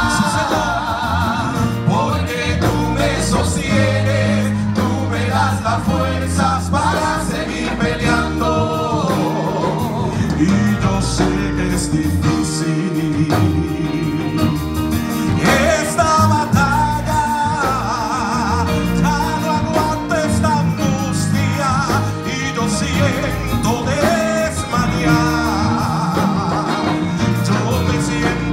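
A worship song performed live by a group of singers on microphones, with band accompaniment including bass and electric guitar, heard through the church's loudspeakers.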